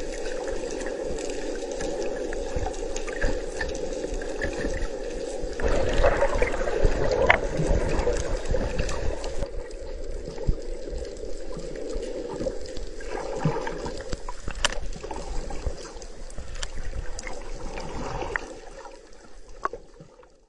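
Underwater recording: a steady muffled rush of water with gurgling bubbles and small clicks, louder for a few seconds around the middle, fading out near the end.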